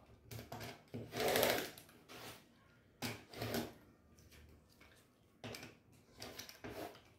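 A 45 mm rotary cutter rolling through layered cotton fabric, resin batting and a heavy brim backing along a ruler, trimming the rug's edge. It makes three cutting passes, about one, three and five and a half seconds in; the first is the loudest.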